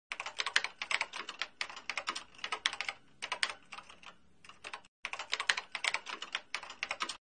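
Computer keyboard typing sound effect: rapid, irregular key clicks that thin out in the middle and stop briefly about two-thirds through before resuming.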